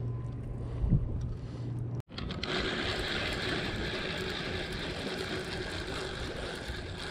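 A steady low engine hum with a single thump about a second in. After a brief dropout at two seconds comes a steady hiss of wind and water.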